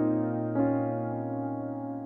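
Background music: sustained keyboard chords, like an electric piano, with a new chord struck about half a second in, then slowly fading.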